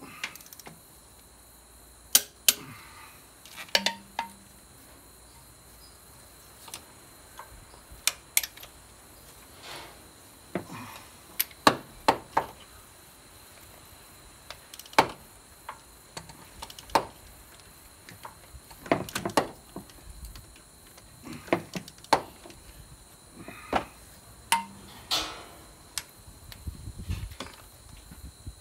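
Sharp metallic clicks and clinks of a torque wrench and socket tightening cylinder head bolts, coming irregularly with short gaps, a few ringing briefly, as the bolts are brought up to torque in sequence.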